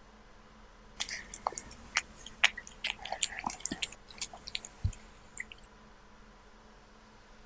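Kitten chewing raw beef: a run of wet clicks and smacks that starts about a second in and stops a couple of seconds before the end.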